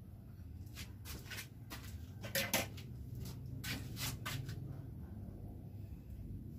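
Metal spoon clinking and tapping against a plastic tub and a ceramic bowl while scooping thick stew, a series of sharp clicks with the loudest pair about two and a half seconds in, over a low steady hum.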